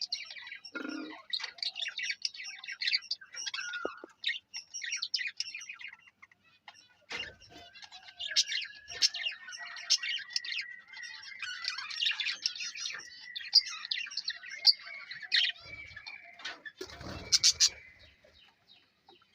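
Budgerigars chattering with a dense run of quick chirps and warbles. A faint steady whistle-like tone runs through the middle, and two brief thumps come about seven and seventeen seconds in.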